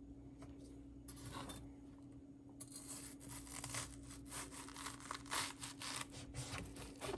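Chef's knife cutting through a ripe watermelon on a wooden cutting board, slicing the flesh off the rind. There is a short rasp about a second in, then from about two and a half seconds a steady run of quick scraping cuts.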